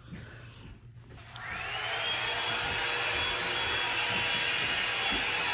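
Hand-held hair dryer switched on a little over a second in: its motor whine rises as it spins up, then it runs steadily with an even rush of air.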